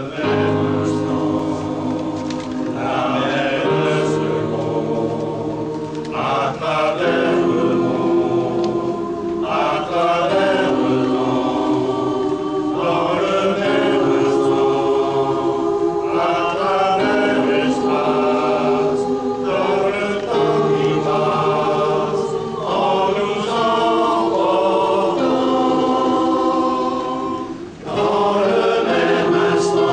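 Large mixed choir of men and women singing in several parts, held chords moving in phrases a few seconds long, with a brief break for breath near the end.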